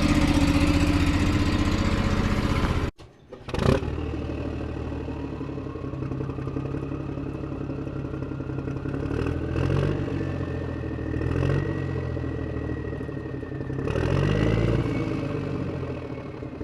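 John Deere F911 commercial mower's engine running loud just after start-up; about three seconds in the sound cuts off abruptly, and the engine then runs quieter, its revs rising and falling three times, with a thin whine climbing slowly in pitch.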